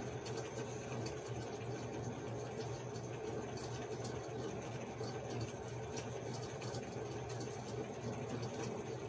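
Steady low hum of a motor or appliance running in the room, even throughout.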